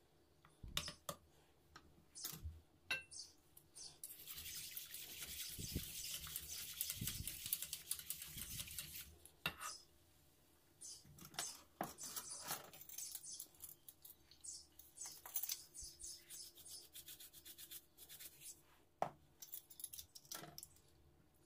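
A coiled spring whisk stirring milk in a stainless steel pot: several seconds of rapid swishing and scraping, then scattered clinks and taps of the wire against the pot.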